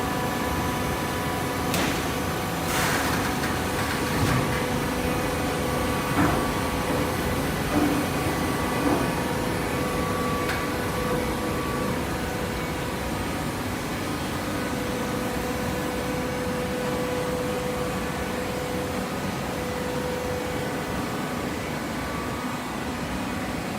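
Hydraulic fiber baler running: a steady machine hum from its motor and pump with a few steady tones, and several knocks in the first nine seconds or so.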